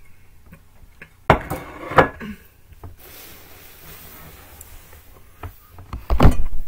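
Things being moved about on a table, a plate and a cardboard pizza box: two sharp knocks about a second and two seconds in, then heavier bumping near the end.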